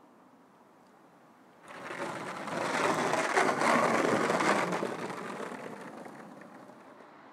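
Skateboard wheels rolling past on rough pavement: a rattling rumble that comes in about two seconds in, is loudest in the middle and fades away as the board passes.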